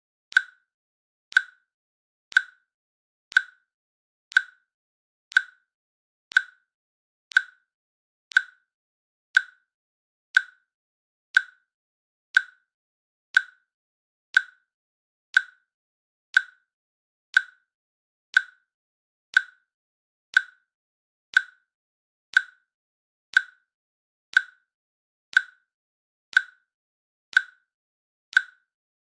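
Countdown timer's click sound effect, one short click every second at a steady pace, each with a brief pitched pop that dies away at once.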